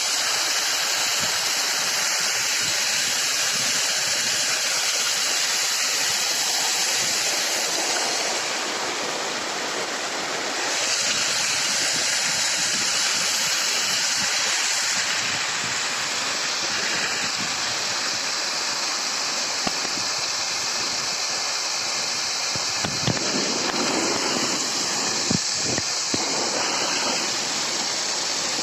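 Waterfall: a steady, dense rush of falling water that dips briefly about a third of the way in, with a few small sharp knocks near the end.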